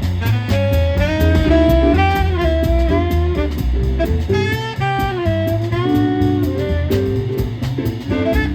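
Live jazz quartet playing: a saxophone carries a melody line that bends and slides between notes, over a moving bass line, keyboard and a drum kit with steady cymbal strokes.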